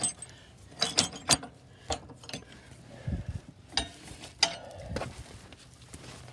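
Sharp metal clanks and clinks, about a dozen irregular strikes with a couple of duller thuds, as steel caps are handled and set in place on a crawler dozer's blade frame.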